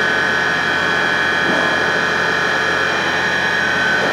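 CNC lathe pre-drilling a hole in a part spinning fast in the chuck under coolant spray: a steady high whine over a hiss.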